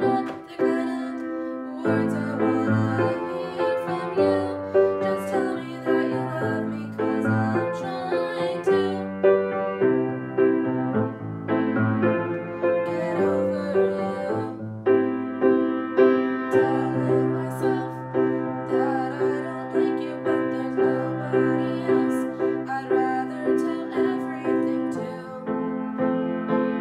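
Grand piano played solo: a steady stream of repeated chords and melody notes over held bass notes.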